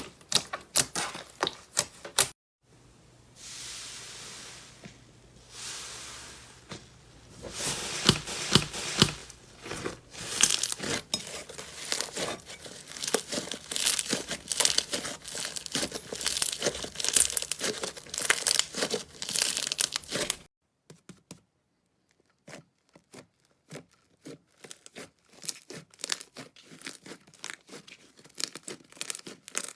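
Slime being pressed and squished by hand. It gives rapid crisp clicks at first, then two soft hissing squishes, then a long stretch of dense crackling and popping. The crackling turns sparser and quieter in the last third.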